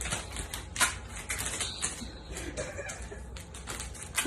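Rapid, irregular clicking, several sharp clicks a second.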